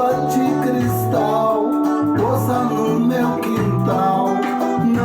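Reggae music playing: a bass line with guitar and other instruments, with no sung words.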